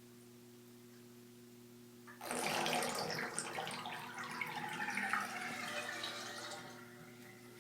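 Water running from a tap into a bathtub: it starts suddenly about two seconds in, runs for about four and a half seconds, and stops near the end.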